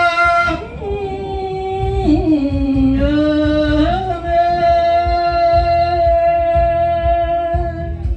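A man sings long, drawn-out notes into a microphone over a steady low beat, in the chanted style of Thai boat-race commentary. The pitch dips about two seconds in, then rises and is held for about four seconds.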